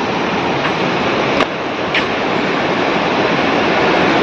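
Flooded river rushing over rocks: a steady water noise that grows slightly louder, with two light clicks near the middle.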